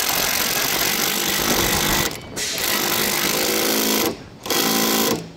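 Impact wrench hammering as it tightens a nut during wheel-bearing reassembly, run in three long bursts with short pauses between them.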